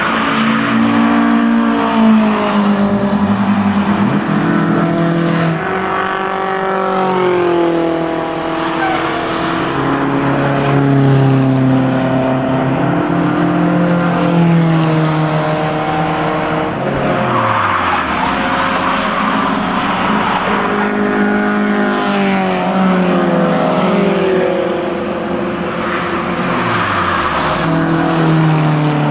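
Racing car engines accelerating and backing off, their note climbing and then dropping again and again as the cars change gear and pass by, over a steady hiss.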